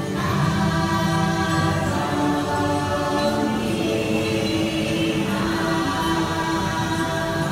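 Music with a choir singing long, held wordless notes that change every few seconds.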